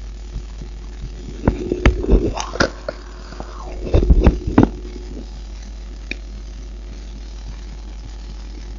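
Two clusters of loud knocks and rubbing, the first about a second and a half in and the second around four seconds in, with a short falling squeak between them and a single click a little later, over a steady low hum; the regular heartbeat thumps are not heard.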